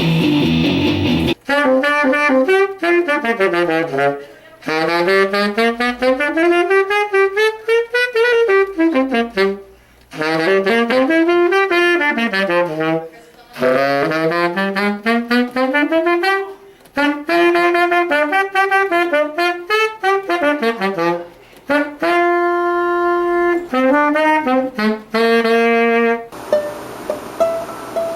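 A solo wind instrument played in quick rising and falling scale runs, with a few held notes near the end. A strummed guitar rings briefly at the start, and quieter plucked strings take over in the last couple of seconds.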